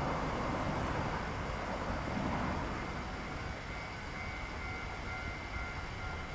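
Distant diesel freight locomotive running as it approaches slowly along the track: a steady low engine and rail sound, a little louder in the first couple of seconds.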